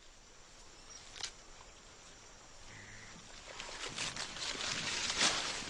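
Leafy stems and foliage rustling and crackling as mountain gorillas grab and pull at the vegetation, with a sharp snap about a second in. The rustling grows louder in the second half.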